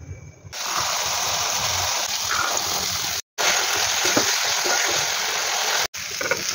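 Tomato and green-pea masala sizzling in an iron kadai while a spatula stirs it, a steady frying hiss with light scrapes, cut off abruptly twice.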